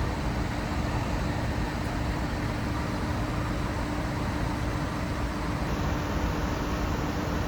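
Steady road and engine noise of a Nissan Serena minivan driving on the highway: an even rumble with a faint steady hum over it.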